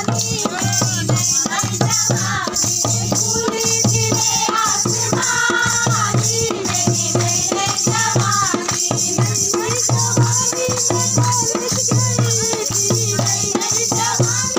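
Group of women singing together to a dholak drum beaten in a steady rhythm, with a constant jingling rattle over it.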